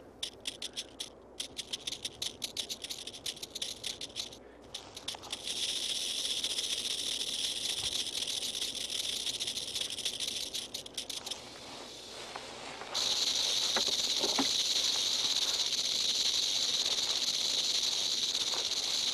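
Western diamondback rattlesnake rattling its tail: first in short separate bursts, then from about five seconds in a continuous high buzz that drops away briefly and comes back louder. It is a defensive warning from snakes irritated at being moved aside.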